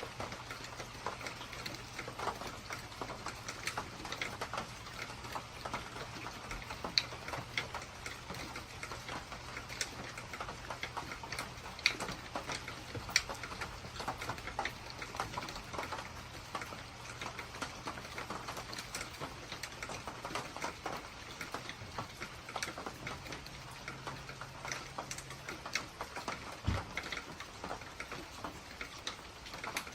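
Rain with many irregular drops ticking sharply on a hard surface, over a low steady hum that stops about two-thirds of the way through.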